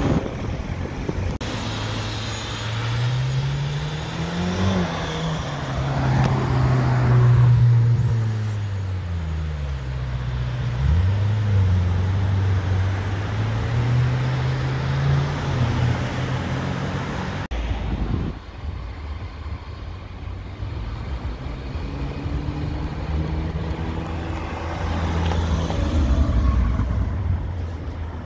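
Sports-car engine accelerating hard, its pitch climbing and dropping back at each gear change several times, loudest about seven seconds in. After an abrupt cut, a second engine runs at low revs and swells again near the end as a red Ferrari drives across the junction.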